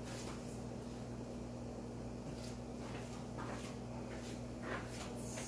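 A low, steady electrical hum, with scattered faint clicks and light taps.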